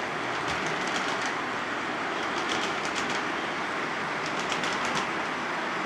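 O gauge model train rolling steadily over Lionel FasTrack: a continuous rumble with faint clickety-clack as the wheels cross the rail joints, not very metallic-sounding.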